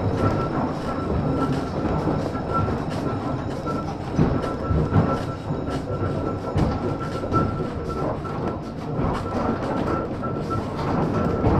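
A 1915 Ringhoffer tramcar running on rails: a continuous rumble and rattle with many short clicks from the wheels over the track, and a steady high tone that holds throughout.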